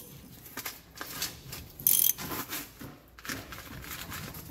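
A socket ratchet clicking in short, uneven runs as it tightens a castle nut on a front spindle, pulling the hub's freshly greased wheel bearings up tight, with one sharp metallic clack about two seconds in.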